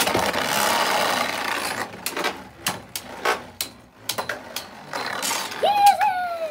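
Two Beyblade Burst tops launched into a plastic stadium, whirring and scraping as they spin against the plastic floor, then sharp clicks and clacks as they strike each other and the walls. Near the end there is a short high cry from a child.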